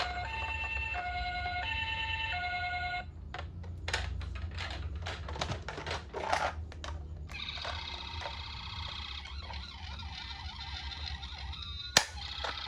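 Toy ambulance's electronic siren: stepping electronic tones for about three seconds, then a few seconds of clicking and rattling, then a warbling siren from about halfway in. A single sharp click near the end.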